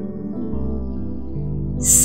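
Background music of held, sustained chords, with a deep bass note coming in about half a second in.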